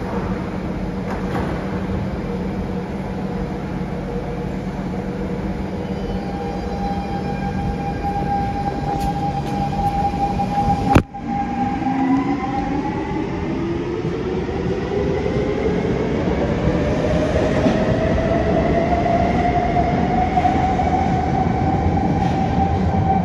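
Siemens C651 metro train's traction motors whining as it pulls out of the station, the pitch climbing steadily for about ten seconds as it gathers speed. Before that there is a steady hum with a held tone while the train stands at the platform, broken off by a sudden click.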